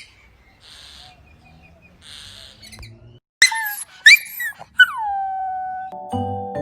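A puppy yelping sharply three times, the last yelp sliding down into a short held howl. Xylophone-like mallet music starts near the end.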